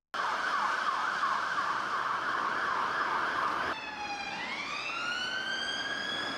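UK fire engine siren on a fast yelp, its pitch sweeping up over and over, cutting off abruptly a little over halfway through. A UK police car siren then takes over on a slow wail, its pitch gliding up and holding high near the end.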